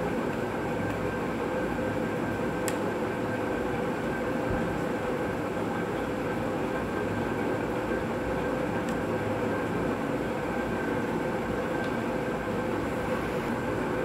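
Steady mechanical hum with a faint constant whine above it, unchanging throughout.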